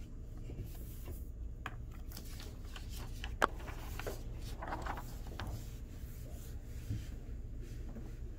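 A sheet of paper rustling as it is lifted off a table and handled, with one sharp tap about three and a half seconds in.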